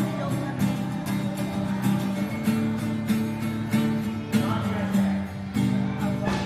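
Acoustic guitar strummed in a steady rhythm, playing the chord accompaniment of a song.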